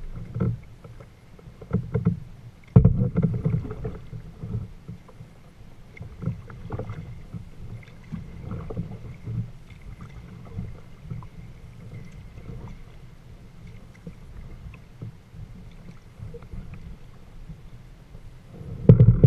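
Water splashing and lapping against a kayak's hull as it is paddled, in irregular surges, with a sharper, louder splash about three seconds in.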